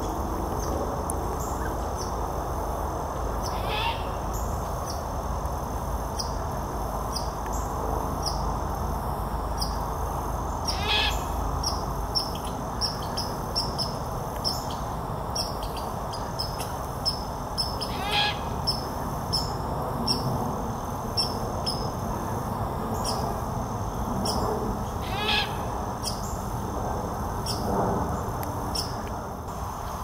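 Juvenile great horned owl giving its raspy, screeching begging call four times, about seven seconds apart: a young owl still calling for its parents to feed it.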